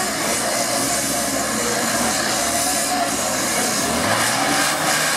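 Engine of a tube-frame off-road trial buggy working hard under load as it climbs over loose rocks, with the revs rising about four seconds in.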